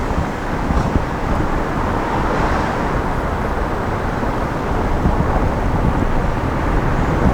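Wind buffeting a roof-mounted camera's microphone on a moving van, over a steady rush of road and traffic noise.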